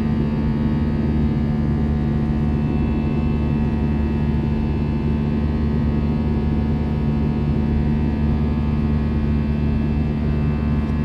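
Airliner engine drone heard from inside the passenger cabin: a steady hum with an even rush of air underneath, holding at the same level throughout.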